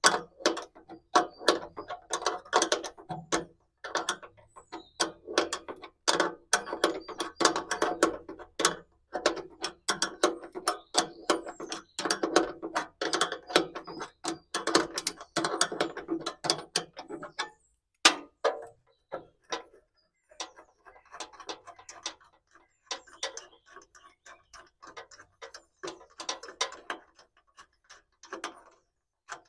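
Ratchet wrench clicking in quick runs as a bolt is backed out. The clicking pauses briefly a little past halfway, then goes on more faintly.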